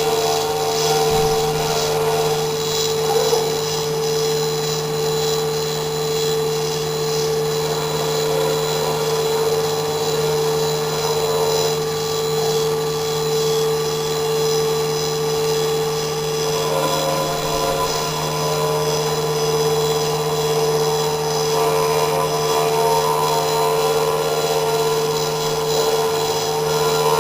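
CNC engraving machine running: a steady whine at several fixed pitches over a continuous hiss.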